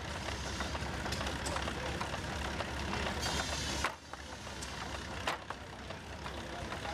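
Antique machinery running: a steady low engine rumble with scattered knocks and clicks. The sound cuts out sharply about four seconds in and picks back up.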